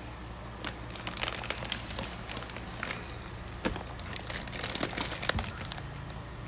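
Plastic fish shipping bags crinkling as they are handled in a foam shipping box, in irregular bursts that start about a second in and die away near the end.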